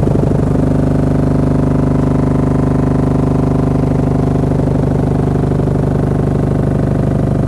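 Cardboard-box subwoofer playing a loud low test tone, a steady buzzing hum with many overtones as the driver and box are pushed hard. The tone changes to a new pitch about half a second in, then holds steady.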